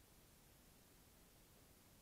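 Near silence: only a faint, steady background hiss.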